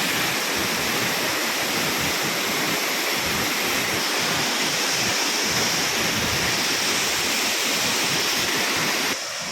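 Steady rush of a waterfall's falling water, a dense even noise. About nine seconds in it drops suddenly to a quieter, thinner rush.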